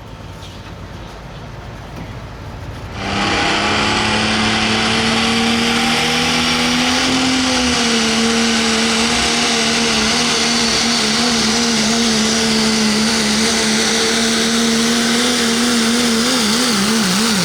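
A competition pulling vehicle's engine at full throttle, coming in loud about three seconds in and holding a steady high pitch under heavy load. Near the end the pitch wobbles up and down, then starts to fall as the throttle comes off.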